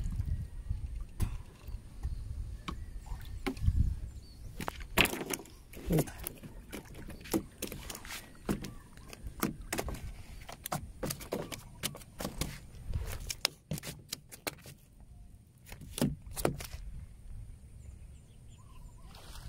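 Irregular sharp clicks and knocks over a low rumble, with a quieter stretch about two-thirds of the way through.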